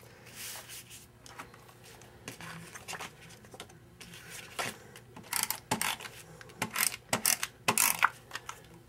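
Handheld adhesive tape runner drawn across cardstock, laying glue on the back of a paper mat: a run of about seven short scratchy strokes in the second half, after quieter rustling of paper being handled.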